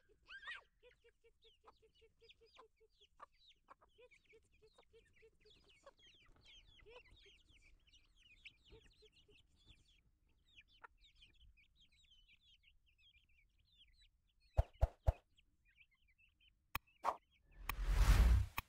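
Chickens clucking in quick low runs, with many faint high chirps over them. Later come three sharp knocks in quick succession, a couple of clicks, and a loud rush of noise lasting about a second near the end.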